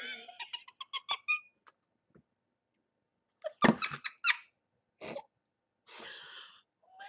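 A woman laughing. Squeaky giggles come first, then a louder burst of laughter midway, then a breathy, muffled laugh behind her hand near the end.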